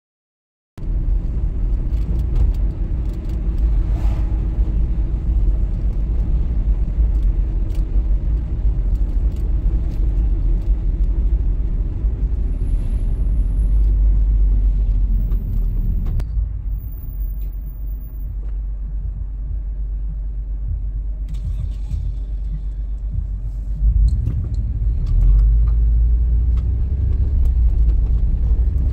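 Steady low rumble of a car driving on city streets, road and engine noise, starting abruptly just under a second in. It eases off around the middle and builds again near the end.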